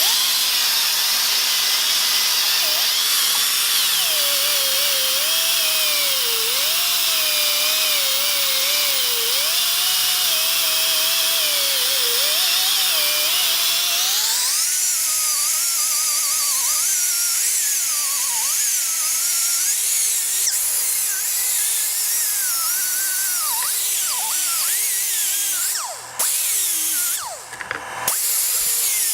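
Reversible die grinder whining at high speed as it sharpens hedge clipper blades, its pitch wavering as the load changes. The pitch jumps higher about halfway through, and the sound dips briefly twice near the end.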